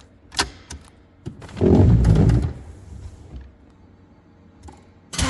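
A few sharp clicks, then a dull low thump lasting about a second, around two seconds in. Right at the end the 1985 Pontiac Fiero GT's engine suddenly starts up on a freshly replaced alternator.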